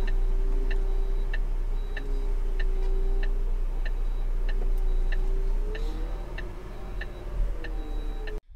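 Turn-signal indicator of a Renault transporter truck ticking steadily about twice a second inside the cab, over the low rumble of the running engine. The sound cuts off abruptly near the end.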